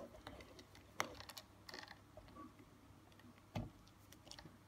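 Sparse, faint clicks and taps of the MiP robot's plastic body being handled, mostly quiet: a sharp click about a second in, a few light ticks after it, and a duller knock past three and a half seconds.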